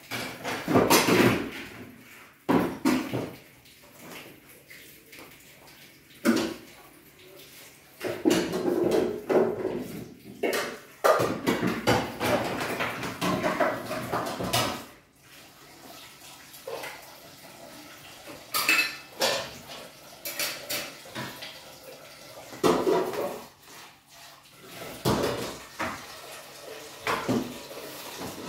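Dishes, pots and cutlery clinking and clattering as they are washed by hand at a sink, in irregular bursts with tap water running at times.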